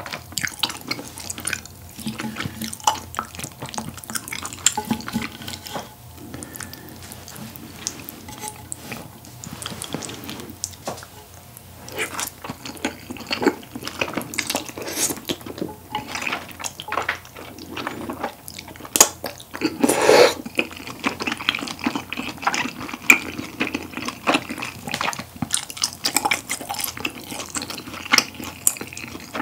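Close-miked wet chewing, lip smacking and slurping of saucy, chewy tteokbokki rice cakes and grilled beef brisket, a dense run of small sticky clicks with one louder slurp about twenty seconds in.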